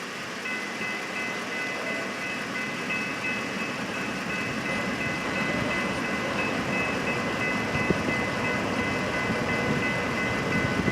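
Intermodal freight train approaching, its rumble and wheel noise slowly growing louder. A steady high ringing tone runs over it from about half a second in.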